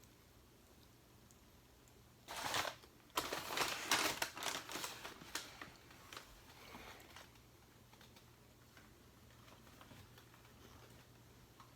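Crunching of a bite into a Popeyes classic fried chicken sandwich: a burst of crisp crackles about two seconds in, a brief pause, then a few seconds of dense crunchy chewing that dies away.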